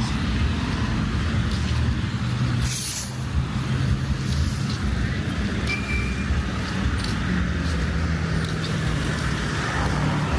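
Street traffic: motor vehicle engines running steadily with road noise, with a short burst of high hiss about three seconds in and a brief high beep near six seconds.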